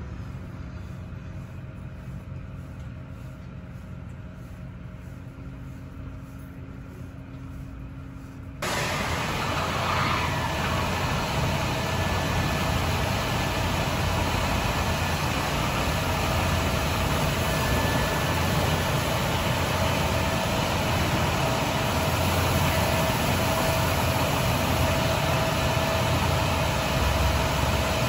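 Car wash machinery running with a school bus's engine idling in the wash bay: a muffled steady hum at first, then, about a third of the way in, a much louder even rush of spraying water and machinery with a steady whine.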